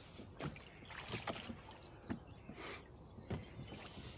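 Small rowing boat on the water: scattered light knocks from the oars and oarlocks, with faint drips and trickles of water.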